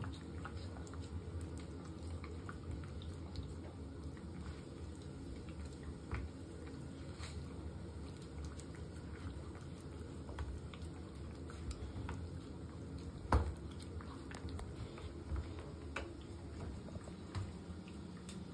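A small dog licking a lick mat: steady wet lapping with a constant patter of small smacking clicks, and one louder knock about thirteen seconds in.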